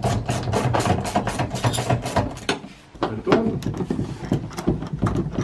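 Socket ratchet clicking rapidly as the seat-mounting bolts are spun out, with a short pause about three seconds in before the clicking resumes.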